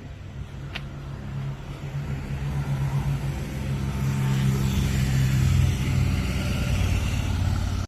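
A car engine running steadily, growing louder over several seconds as the vehicle comes closer, then cutting off suddenly at the end.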